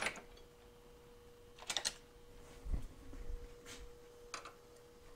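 A handful of light metallic clicks and a soft knock as a heat shield screw and lock washer are handled and a screwdriver is set to the screw on a motorcycle exhaust heat shield. A faint steady hum runs underneath.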